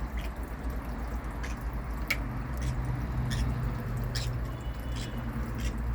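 A parrot's beak gnawing and nibbling at a statue: a string of small, sharp clicks coming at irregular intervals.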